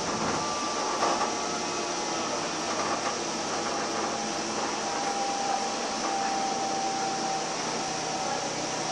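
A Sound Transit Link light rail car running along its track, heard from inside the car: a steady running noise, with a faint high whine that holds for a few seconds past the middle.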